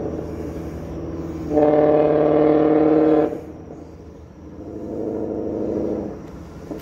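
A vehicle sounds a loud, steady-pitched drone for under two seconds that starts and stops abruptly. A second, quieter steady drone then swells and fades.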